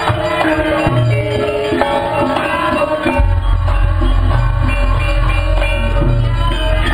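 Javanese gamelan playing, with bonang kettle gongs and other bronze percussion striking dense, interlocking pitched notes. A deep low note comes in about three seconds in and holds.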